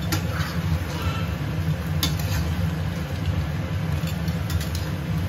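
Crayfish being stir-fried in a wok: a metal spatula scraping and clinking against the pan, once near the start, again about two seconds in and several times near the end, over a steady low rumble from the gas burner and kitchen.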